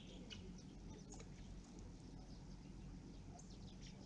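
Faint, scattered bird chirps, one sweeping down in pitch at the start, over a steady low background hum.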